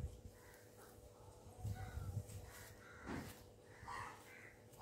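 Wooden comb drawn in slow strokes through long, oiled wet hair, a faint soft rasp. A crow caws a few times in the background near the end.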